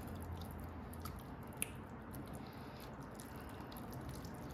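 Faint wet squishing as a thick, creamy ground-beef mixture is scraped out of a stainless steel pot with a silicone spatula and plops onto tater tots, with a sharper click about a second and a half in.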